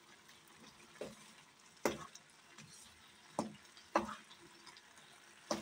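Spatula stirring and scraping through grated carrots in milk and cream in a pan for carrot halwa: about four separate scraping strokes against the pan over a faint sizzle of the mixture cooking.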